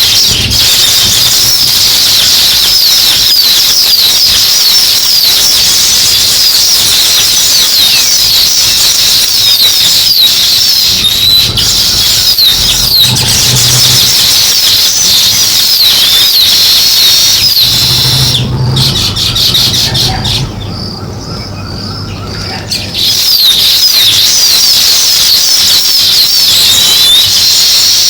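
A flock of sparrows chirping, many birds at once in a dense, continuous chorus of high chirps, which drops quieter for a few seconds about two-thirds of the way through.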